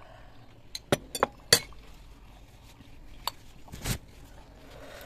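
Metal spoons clinking and scraping against porcelain bowls during a meal: a quick run of sharp clinks about a second in and another around three seconds, with a short rougher scrape just before four seconds.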